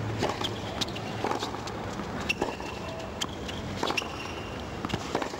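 Tennis rally on a hard court: sharp pops of the ball off the rackets and the court about once a second, with short high squeaks of players' shoes, over a low crowd murmur.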